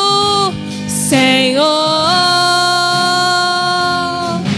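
A woman singing a Portuguese worship song into a microphone over backing music. She holds a short note, takes a breath, then holds one long note that steps up in pitch twice.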